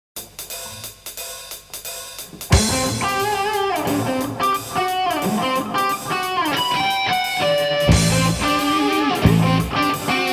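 Studio rock band recording with electric guitars, bass and drum kit, starting from silence. It opens quietly with a light rhythmic part, then the full band comes in loud about two and a half seconds in.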